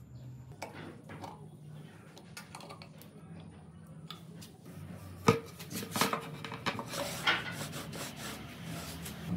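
Clicks, knocks and clatter of a clamp and an unpowered trim router being handled and fitted on a metal-topped table. One sharp knock comes about five seconds in, followed by a busier run of rattles.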